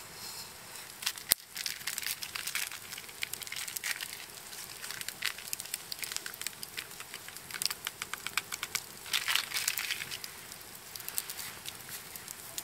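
Wood campfire crackling and popping in quick, irregular snaps, with one sharp pop about a second and a half in.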